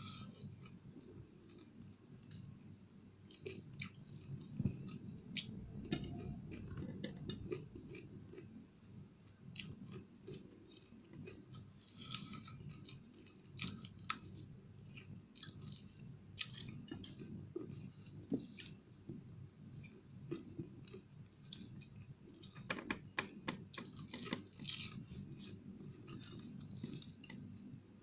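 Close-up mouth sounds of a person chewing and biting fried fish, with many short sharp clicks throughout.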